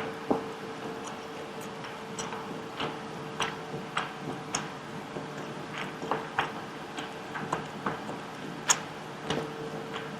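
Close-miked chewing of pan-fried beef: short clicks about every half second to second, over the steady hum of a fan.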